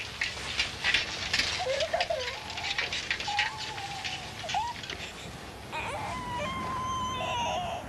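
High, thin whining sounds that waver and bend in pitch, a few drawn-out notes about a second long, heard twice. Scattered clicks and rustles run through the first few seconds.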